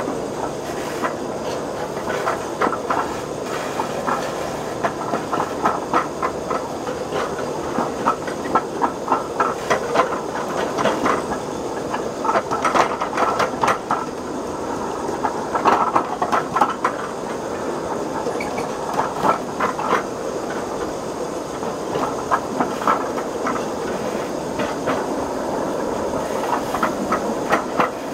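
Wheels of a 7.5-inch gauge ride-on miniature train rolling along the track: a steady rumble with clickety-clack clicks at the rail joints, coming in irregular runs. The rails are welded but not across the top of the joints, so each joint still clicks like jointed track.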